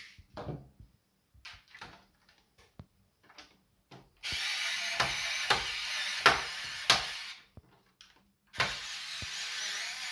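Small electric screwdriver running in two spells, backing out the screws that hold the cassette mechanism of a Sony TC-KE400S deck. Sharp clicks sound as it turns. The first spell starts about four seconds in and lasts about three seconds; the second starts near the end. Before the first spell there are a few light clicks and taps of handling.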